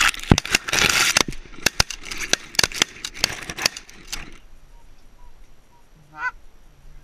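Canada geese honking overhead while several shotgun shots crack out in quick succession over the first four seconds. Near the end, a single honk is heard on its own.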